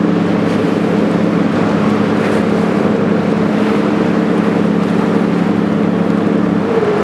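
Passenger ferry's engines droning steadily over a rushing noise of wind and water. The engine drone drops away about six and a half seconds in, and the rushing noise carries on.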